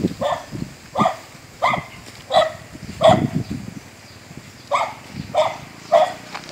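A dog barking repeatedly, about one bark every two-thirds of a second, in two runs of four with a pause of over a second in the middle.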